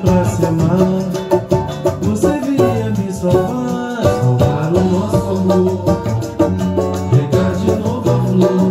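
Brazilian samba banjo (banjo-cavaquinho) strummed with a pick in a fast, even pagode rhythm, over a backing track with a steady bass line and Latin percussion.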